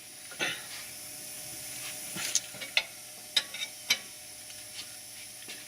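Sharp metallic clicks and clinks of brake parts and hand tools being handled, about half a dozen over a steady hiss, most of them bunched in the middle.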